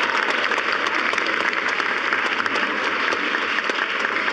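Audience applauding: many hands clapping steadily throughout.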